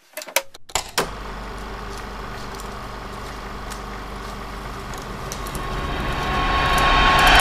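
A few sharp clicks as a DVD is set into a player's disc tray, then a steady rumbling drone that swells louder toward the end.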